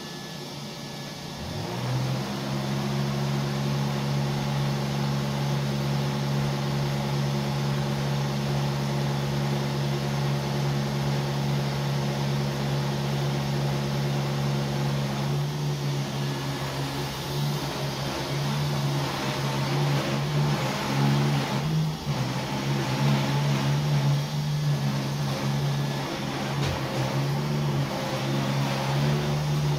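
Neato D7 robot vacuum starting up: its motor spins up with a rising hum about a second and a half in, then runs with a steady low hum. From about halfway on, the hum wavers and dips as the robot moves off across the floor.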